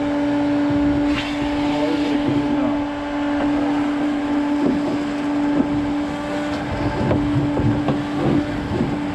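Shop vac running with a steady whine, sucking up leaves and debris with crackling and rattling in the hose.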